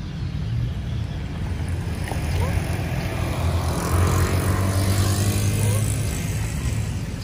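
A motor vehicle driving past on the road, its engine and tyre noise growing louder to a peak about four seconds in and then fading.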